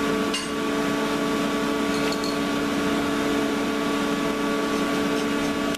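A running machine with a steady hum of several even tones over a rushing noise, with a couple of faint clicks.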